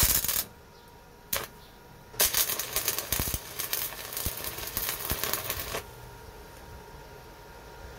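Stick (arc) welding on a GY6 scooter engine case: the arc crackles in a short burst at the start and again briefly about a second and a half in, then sputters and crackles steadily for about three and a half seconds before cutting off.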